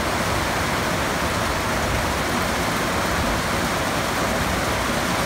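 A steady, even rushing noise with no change in level.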